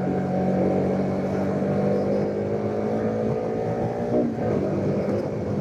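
Bajaj Pulsar RS200's liquid-cooled single-cylinder engine running at a steady cruise, heard from the rider's seat. About four seconds in the even engine note breaks off and turns less regular.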